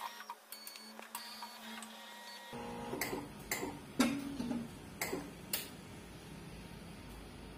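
Mindray BC-2600 auto hematology analyzer running its tubing test, its mechanism clicking over a steady hum. From about two and a half seconds a louder running noise starts, with sharp clicks about twice a second.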